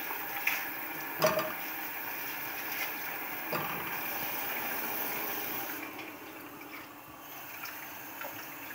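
Tap water running into a kitchen sink while apricots are washed, stopping about six seconds in, with a few light knocks as the washed fruit is put into an enamel pot.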